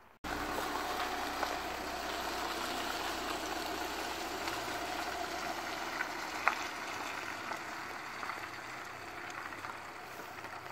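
Van engine idling: a steady hum under a rushing hiss, with one sharp click about six and a half seconds in.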